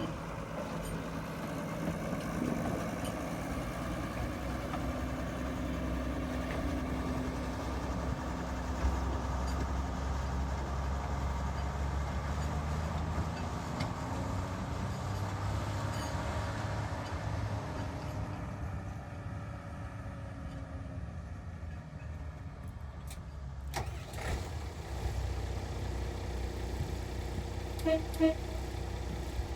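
Small diesel narrow-gauge locomotive engine running steadily, its note rising and falling for a few seconds midway, with two short tones near the end.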